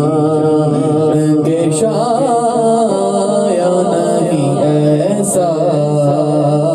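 A man singing a naat without instruments into a handheld microphone, in long held, ornamented phrases, his voice run through a K Audio mixer with an echo effect.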